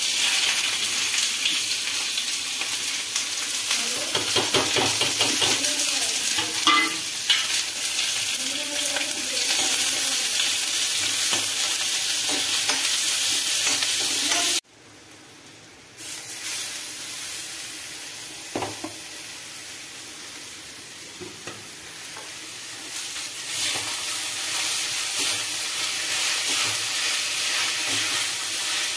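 Chopped onions and green chillies sizzling as they hit hot oil in a kadai and fry, with a metal spoon scraping and stirring them. The sound cuts off abruptly about halfway, then the frying comes back quieter and grows again near the end, with the pan now holding soya granules.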